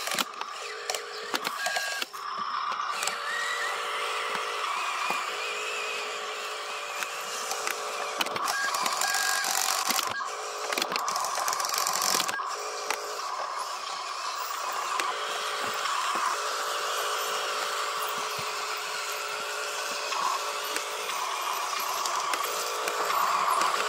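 Huina RC dump truck's small electric motors and gears whirring steadily as it tips its bed and drives over dirt, with a few clicks and rattles along the way.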